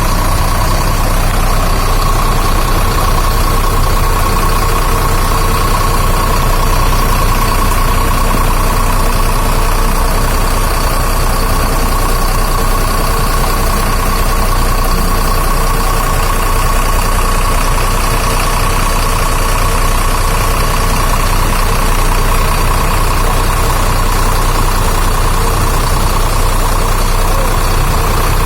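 A used bus's diesel engine idling through a loud aftermarket exhaust with a deep, snoring ('ngorok') note. The sound holds steady throughout.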